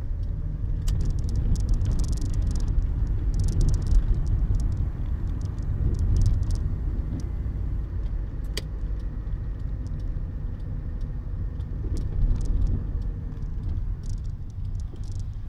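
Cabin sound of a Citroën BX 14 RE's four-cylinder petrol engine and tyres running slowly on a wet road, a steady low rumble with scattered small clicks and rattles over it.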